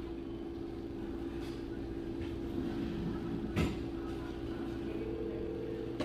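Steady low hum of a building's ventilation with one held tone through it, and a single sharp knock about three and a half seconds in.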